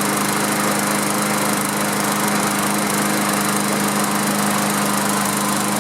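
Briggs & Stratton single-cylinder mower engine running steadily at an even speed, firing again now that its replaced ignition coil gives spark.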